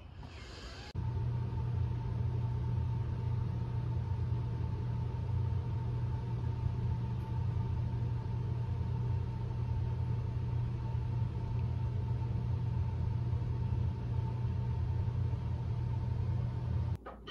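A steady low mechanical rumble with a faint steady whine above it. It starts abruptly about a second in, holds even throughout, and cuts off just before the end.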